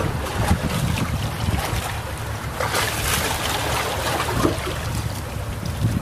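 Calm sea waves washing onto a beach, with one brighter, hissing wash about halfway through, over a steady low rumble of wind on the microphone.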